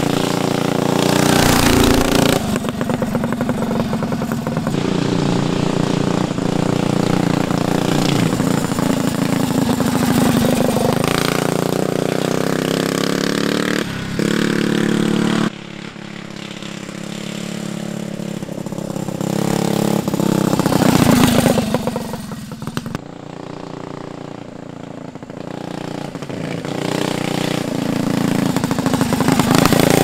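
Methanol-burning Tillotson 236cc single-cylinder engine on a stretched Mega Moto mini bike, running under way as the bike is ridden, its pitch rising and falling as the rider gets on and off the throttle. The sound changes abruptly about halfway through and again about two-thirds through, and it is loudest a little after that and at the very end.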